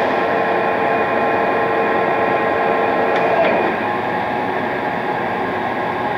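Polamco TUJ-50M engine lathe running under power: a steady mechanical whir with a few steady gear tones from the headstock. One tone drops out about three and a half seconds in and the running sound eases slightly.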